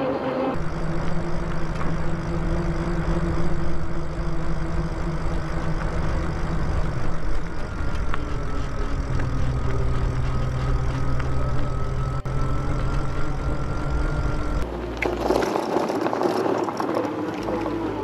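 Wind rushing over the action camera's microphone and tyres rolling on the trail while riding an electric bike, a steady noise with a deep rumble that shifts abruptly a few times. A faint steady whine sounds through the middle stretch.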